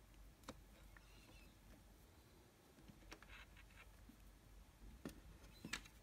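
Near silence, with a few faint clicks and taps from fingers handling a small plastic wire connector and its wire leads. The sharpest click comes near the end.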